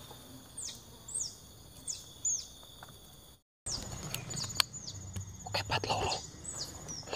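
Repeated short, high chirps, each sweeping quickly downward, about one every half second to second, over a steady high-pitched insect drone. The sound drops out for a moment partway through, and a single sharp click comes soon after.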